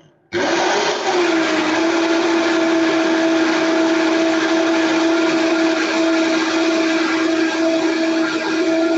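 Electric blender switched on at high speed, puréeing a batch of cooked brown-sauce mixture. Its motor starts abruptly, spins up over about a second, then runs with a loud, steady whine.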